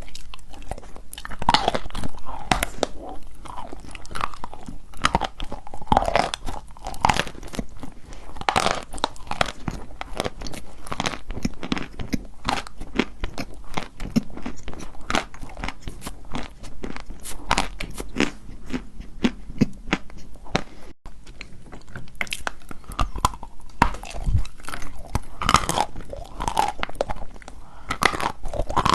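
Wet chalk being bitten and chewed close to the microphone: a continuous run of crisp, crackly crunches.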